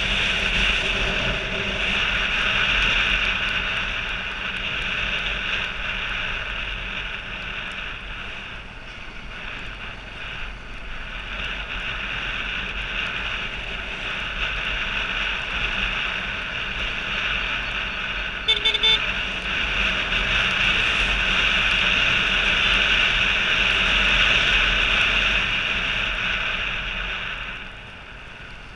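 Off-road motorcycle riding along a dirt track, its engine mixed with steady wind noise on the bike-mounted camera's microphone. A brief horn toot sounds about two-thirds of the way through, and the noise drops off near the end.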